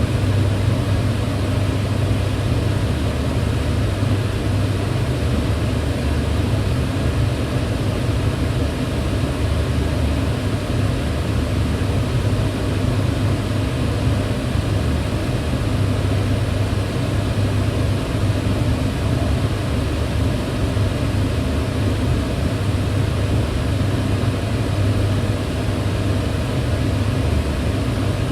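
Kitchen range hood fan running steadily, a constant airy whoosh over a low hum.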